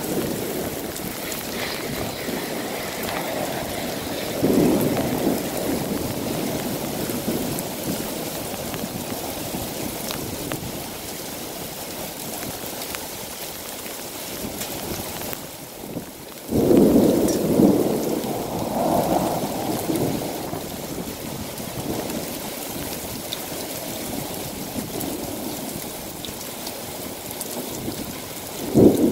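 Heavy thunderstorm rain pouring steadily, with low rolls of thunder swelling up about four seconds in, more suddenly about sixteen seconds in, and again at the very end.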